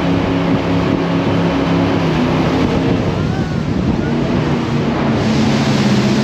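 Jet boat engine running at speed over a rush of water and wind, its pitch shifting a couple of times as the boat changes speed.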